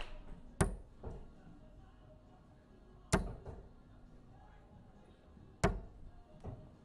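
Three steel-tip darts thudding one after another into a Winmau Blade 6 sisal bristle dartboard, about two and a half seconds apart.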